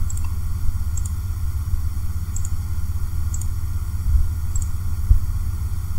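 Steady low rumble and faint hiss of the recording's background noise, with a few faint, sharp clicks spread about a second apart, typical of mouse clicks.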